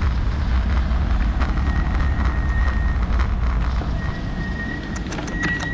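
Wind buffeting the microphone of a moving bicycle, with road rumble that eases off about two-thirds of the way through as the bike slows. A thin, steady high whine comes and goes over it, with a few light clicks near the end.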